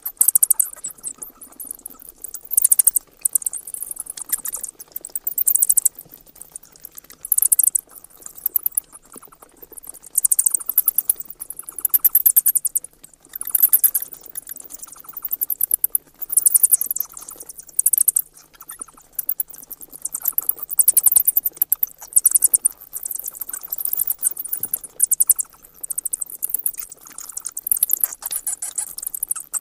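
Bats chattering: rapid trains of very high-pitched clicks and squeaks, coming in bouts a second or two long with short gaps between them.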